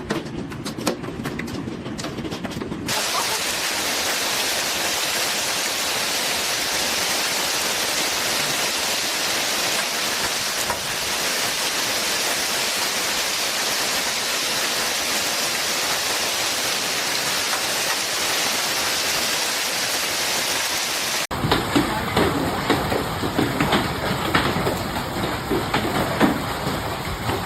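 Hailstorm: a dense, steady hiss of hail and rain pelting down. After an abrupt change about 21 seconds in, it becomes a clatter of many separate hailstones striking hard surfaces.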